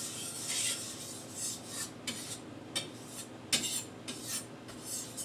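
Steel kitchen knife blade scraping across an oiled sharpening stone in circular strokes: a rasping sweep repeated about twice a second, with one sharper click partway through.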